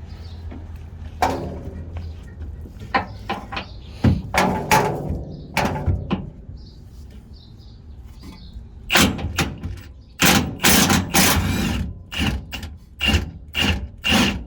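Irregular knocks and metallic clatter of tools on the truck's front suspension while a top fastener is worked loose, with a denser spell of clattering about nine seconds in.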